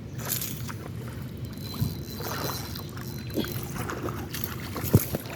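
Water splashing and scattered knocks and clicks as a hooked fish is reeled in and fought at the surface, with one sharp knock about five seconds in.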